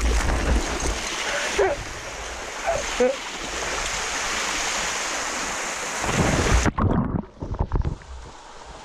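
Rushing water in a canyon watercourse, a steady hiss. About seven seconds in it cuts off abruptly to a duller, uneven sound with a few low thumps.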